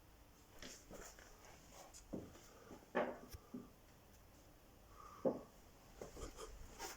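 Faint, scattered handling knocks and rustles, with two sharper knocks about three and five seconds in.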